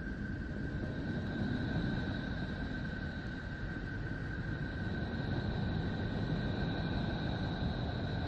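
Space sound presented as Neptune's: a steady low noisy drone with two thin, steady high whistling tones above it, the higher one growing stronger a couple of seconds in.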